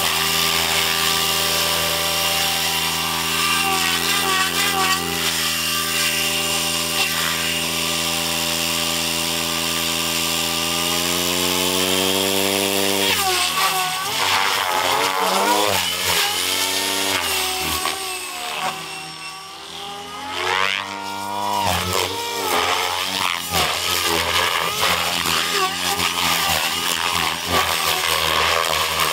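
Goblin Raw 700 electric RC helicopter with an Xnova motor: rotor blades and motor running at a steady, even pitch while it lifts off and hovers, then from about halfway the pitch sweeps up and down again and again as it flies past at speed, fading briefly before coming back.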